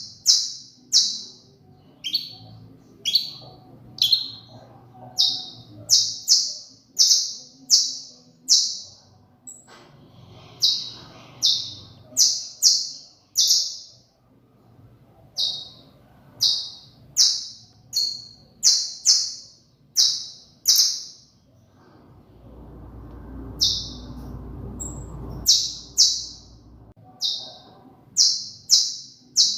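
Saffron finch (canario criollo) singing: a series of loud, sharp, high notes, each falling in pitch, about one a second, in runs broken by short pauses. A low rushing noise comes in from about 22 to 25 seconds, during a pause in the song.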